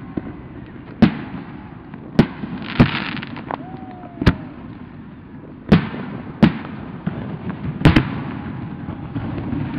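Aerial firework shells bursting, about eight sharp booms at irregular intervals a second or so apart. One boom about three seconds in is followed by a brief crackling hiss.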